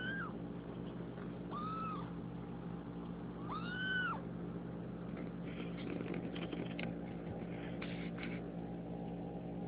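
Two- to three-week-old kitten mewing three times in the first four seconds: short, high, arching cries, the third the loudest. Soft rustling clicks follow, over a steady low hum.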